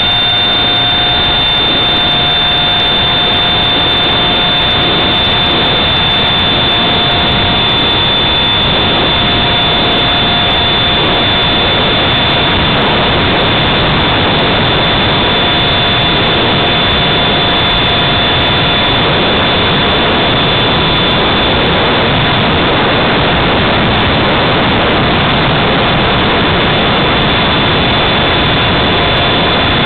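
Electric ducted fan of a Habu RC jet running steadily at flying throttle, heard from a camera mounted on the airframe. It is a loud, even rush with a steady high whine.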